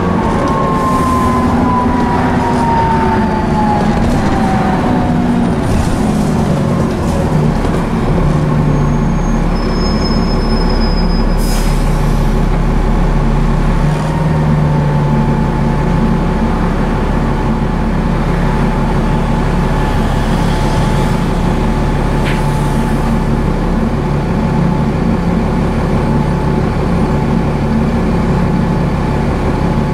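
Interior running sound of a Transbus ALX400/Trident double-decker bus with a Cummins ISCe diesel and a Voith D851.3E automatic gearbox. A drivetrain whine falls in pitch over the first several seconds. From about halfway a deeper engine drone and a steadier whine carry on under pull.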